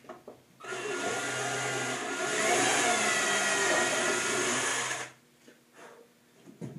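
Cordless drill running under load in hardwood for about four and a half seconds, its motor pitch dipping briefly midway, then stopping.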